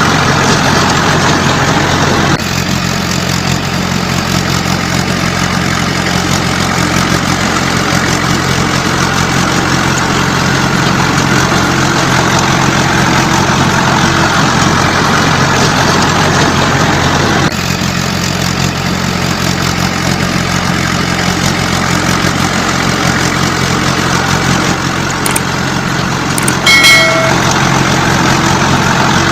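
A heavy vehicle's diesel engine running steadily, with a brief high-pitched tone about three seconds before the end.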